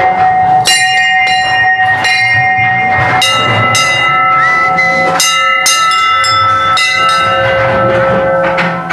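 Hanging temple bells struck over and over, about two strikes a second, each clang leaving several ringing tones that overlap and run on; the ringing stops near the end.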